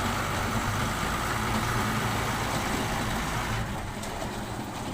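Heavy vehicle engine running steadily, growing a little quieter near the end.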